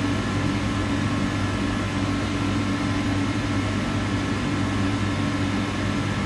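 Steady workshop machinery hum: a constant low drone with a few faint steady tones above it, unchanging throughout.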